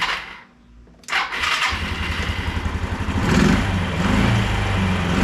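Yamaha Riva 125 scooter's electric starter cranking: a first crank stops just after the start, a second crank about a second in, and the 125 cc single-cylinder engine catches and runs. It picks up briefly near three seconds and then settles into a steady idle, starting normally on its new starter relay.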